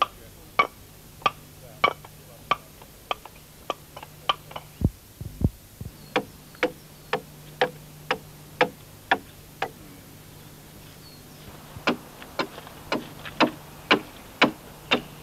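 Regular chopping blows of a hand tool into the green oak of a logboat, about two sharp, slightly ringing knocks a second, pausing for a couple of seconds past the middle before starting again.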